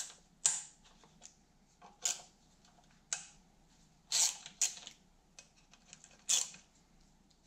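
Hand ratchet clicking in short bursts, about six strokes spaced irregularly, as the bolts holding a dirt bike's ignition coil are undone.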